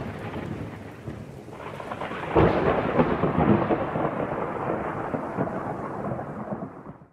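Thunderstorm sound effect: rain falling, then a rolling thunderclap that breaks about two and a half seconds in and slowly dies away.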